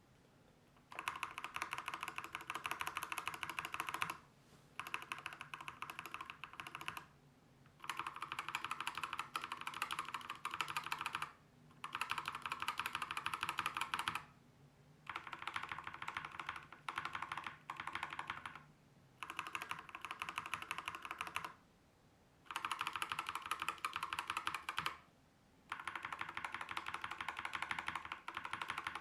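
Fast typing on a mechanical keyboard fitted with Prime Keyboards Alpaca linear switches (factory-lubed POM stem, polycarbonate top and nylon bottom housings, 62 g springs): rapid runs of key strokes a few seconds long with short pauses between them.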